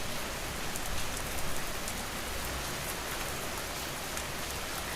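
Steady rain falling on a surface, with the sharp ticks of individual drops.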